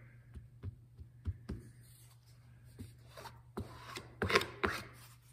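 Hand smoothing a piece of fabric onto a plywood board with light taps and rubbing, then a scrap of cardboard scraped in short strokes over the glue-soaked fabric to spread thinned glue, the strokes louder from about three seconds in. A faint steady hum lies underneath.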